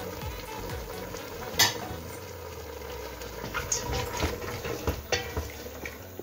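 Wooden spoon stirring chopped tomato and chickpeas frying in oil in a stainless steel pot, with a soft steady sizzle. The spoon knocks sharply on the pot once about a second and a half in, and scrapes and taps lightly against it in the second half.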